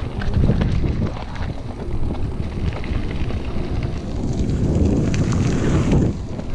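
Wind buffeting the microphone of a moving bike-mounted camera, a steady low rumble, with a brighter hiss swelling from about four seconds in and falling away near the end.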